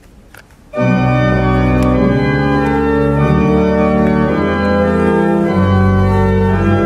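Church pipe organ playing, coming in suddenly about a second in with full, sustained chords that change every second or two over a deep bass.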